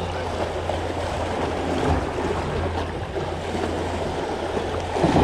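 Sea water washing against shoreline rocks, a steady rushing, with wind rumbling on the microphone.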